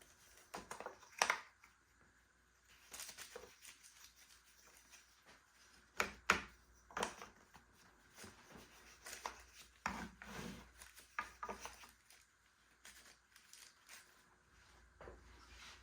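Scattered light clicks, knocks and scrapes of small clamps being handled and fitted during a guitar-side glue-up, the sharpest knock about six seconds in.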